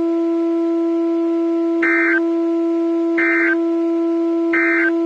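Three short NOAA Weather Radio SAME digital data bursts about a second apart, of the length of the end-of-message code that closes an alert or test. They sound over a steady low buzzing tone on the radio reception.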